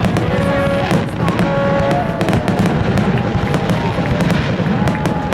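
Aerial fireworks shells bursting and crackling overhead, a continuous run of sharp bangs and pops.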